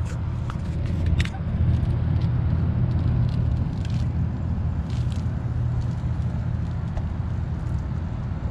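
Small boat's outboard motor idling as a steady low hum, with a few light clicks and rattles as a cast net is gathered and handled.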